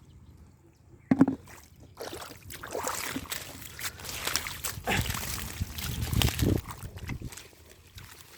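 Water and mud sloshing and splashing as hands work through shallow muddy water while fishing by hand. A sharp splash comes about a second in, followed by a few seconds of busier, irregular splashing that settles near the end.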